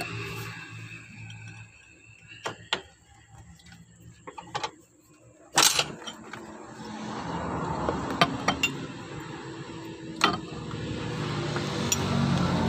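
A motor vehicle engine running nearby fades away, then a low engine hum builds again in the second half. Scattered sharp clicks and one loud knock about five and a half seconds in are heard over it.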